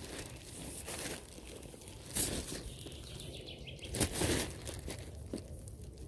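Thin green plastic rubbish bag rustling and crinkling as clothes and shoes are stuffed into it by hand, in irregular swishes with the loudest about two and four seconds in.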